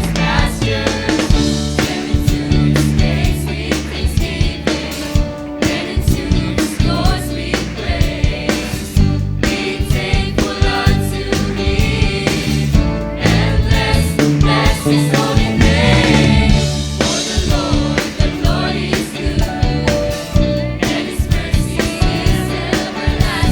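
Youth choir singing an upbeat gospel song, backed by a band with a steady drum beat and bass.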